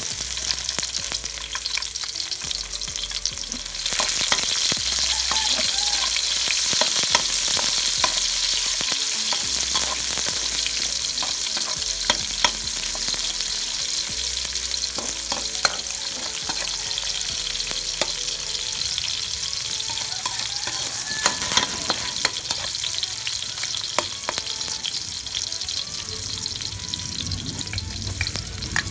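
Garlic and sliced onions sizzling in hot oil in a metal wok, with a metal spatula clicking and scraping against the wok as they are stirred. The sizzle grows louder about four seconds in.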